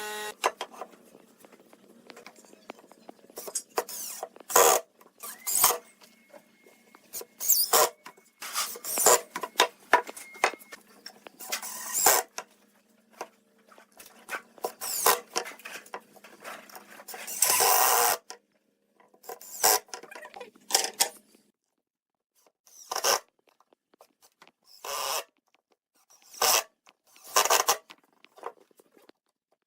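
Scattered knocks, clicks and short scraping sounds of hand work on wood, with a longer scrape about two-thirds of the way through.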